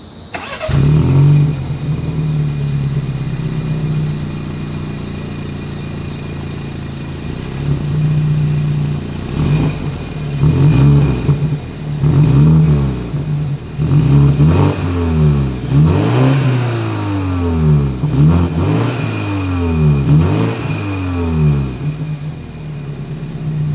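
2021 BMW X3 xDrive30i's 2.0-litre turbocharged four-cylinder heard through its stock dual exhaust with round chrome tips. It starts about a second in with a brief flare, then idles steadily. From about ten seconds in it is revved in a string of quick blips, each rising and falling in pitch, before settling back to idle near the end.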